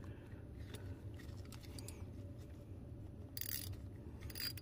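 Low steady hum with two brief, sharp metallic clinks or scrapes in the second half, as hand tools are handled.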